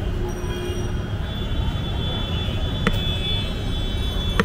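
Street traffic noise: a steady low rumble with a thin, high, steady whine over it, and two sharp clicks, one about three seconds in and one at the end.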